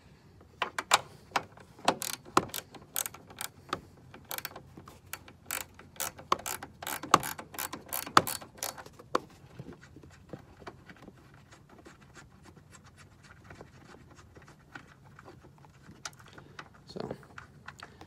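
Hand wrench being worked on nuts: a run of sharp metallic clicks, dense through the first half and sparser after, like a ratchet being turned in short strokes.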